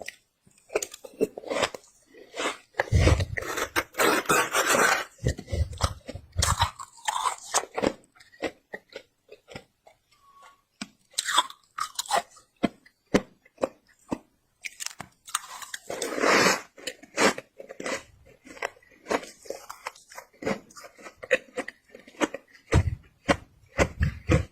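Close-miked biting and chewing of squeaky freezer frost: a dense run of sharp crunches and crackles, with longer grinding crunches about three to five seconds in and again around sixteen seconds.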